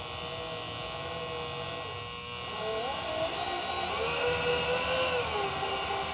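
Small electric power-feed motor (a Harbor Freight copy of a Bridgeport-type drive) running the milling machine's knee lift, a steady whine. Its pitch steps up about two and a half seconds in and again at about four seconds, then drops near the end.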